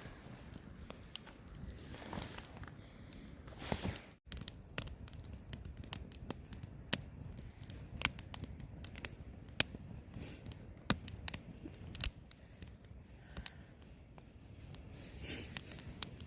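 Tent fabric rustling and snapping in strong wind, in irregular sharp clicks over a steady low rustle, with a break about four seconds in.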